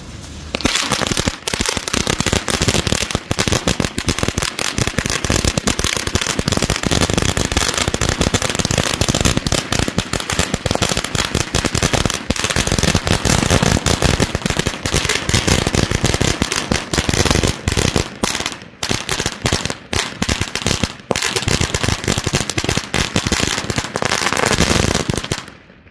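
A 1000-shot firecracker string (Fireevent / Red Lantern Celebration Cracker) going off: a dense, rapid, continuous crackle of bangs. It starts about half a second in, has a few brief gaps in the last third, and stops shortly before the end.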